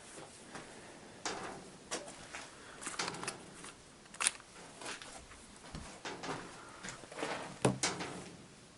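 Irregular clicks, taps and light scrapes from parts of a van's heater fan assembly being handled while sealant is spread on them, with a few sharper knocks near the end.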